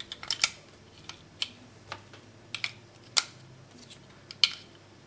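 A string of irregular sharp plastic clicks and taps as batteries are pressed into a small robot buggy's plastic battery compartment and its lid is handled.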